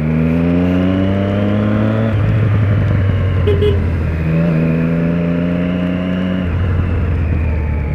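Triumph Speed Triple 1050's three-cylinder engine accelerating under load, its pitch climbing steadily, shifting up about two seconds in, then pulling and climbing again before another upshift past six seconds. Steady wind rush runs underneath.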